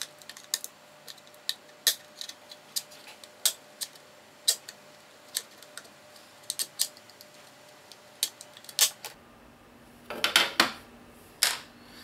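Plastic case of an Android TV box being pried apart by hand: irregular sharp clicks and snaps as the snap-fit clips give, with a louder burst of clattering near the end as the case comes open.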